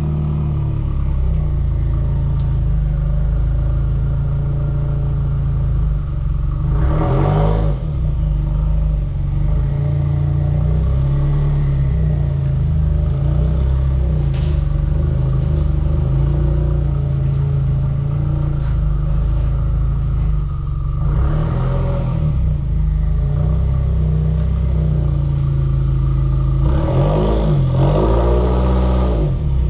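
Subaru WRX's turbocharged 2.0-litre flat-four running through an axle-back muffler delete, a steady low exhaust note as the car reverses slowly toward the microphone. Three brief throttle blips rise and fall in pitch: about a quarter of the way in, about two-thirds in, and near the end.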